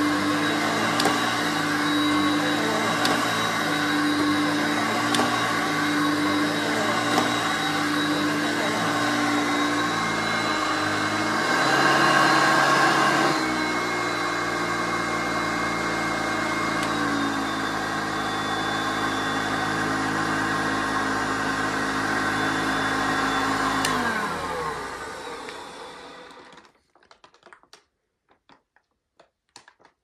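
1978 Hoover Concept One upright vacuum cleaner running as it is pushed back and forth over carpet, its motor tone wavering with each stroke. About twelve seconds in it gets louder for a couple of seconds, then runs steady. About twenty-four seconds in it is switched off and the motor winds down to a stop.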